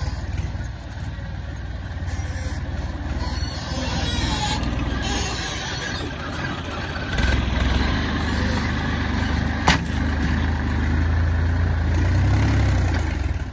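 Diesel engine of a John Deere tractor with a front-end loader running under load while the loader digs and lifts soil. The engine gets louder about seven seconds in, and a single sharp knock sounds about ten seconds in.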